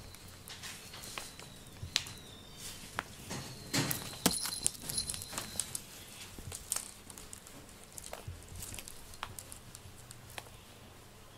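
Light, irregular taps and patters of a cat's paws on a wooden slat floor as it moves about after a string toy, busiest about four seconds in.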